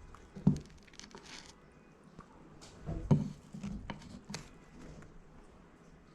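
Someone biting into and chewing a burger: soft mouth and food noises with a few short sharp sounds, the loudest about half a second in and about three seconds in.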